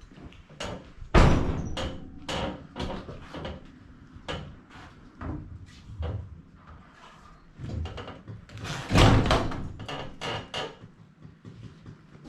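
Knocking and clattering as an old side-by-side refrigerator is handled and moved, with two loud bangs, about a second in and about nine seconds in.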